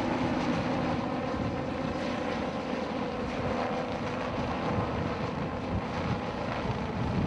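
A steady engine drone with a low hum, and wind noise on the microphone.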